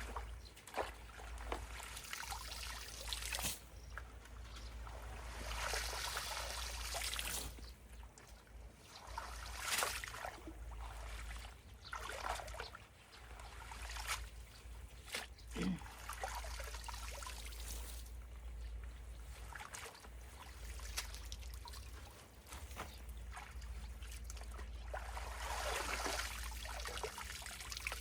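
Water trickling and sloshing at a clogged culvert, in irregular swells with occasional splashes.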